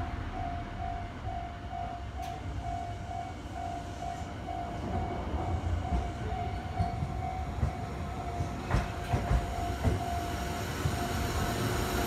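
Level-crossing warning bell ringing as a steady, evenly repeated ding, stopping near the end. Under it a Sotetsu 11000 series electric train approaches and passes close by, rumbling louder, its wheels clacking several times in the second half.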